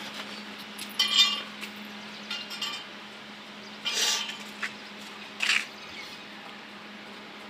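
Metal snake tongs clinking and scraping on a concrete path while a spectacled cobra is being handled: four short clinks and scrapes spread across a few seconds.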